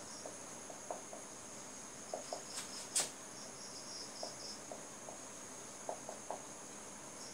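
Crickets chirping steadily in a high, pulsing trill, with short soft strokes of a marker writing on a whiteboard and one sharp click about three seconds in.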